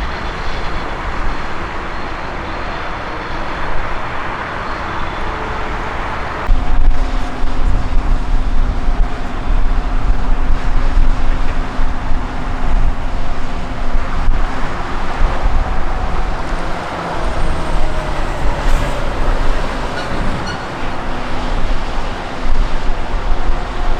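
Steady noise of traffic and idling machinery. About six seconds in it gives way to the louder steady rumble and whine of a McDonnell Douglas MD-11 freighter's three jet engines, with tones that drift slowly in pitch.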